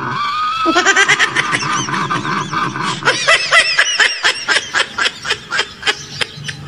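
Comic laughing sound effect: one long laugh made of quick, even pulses.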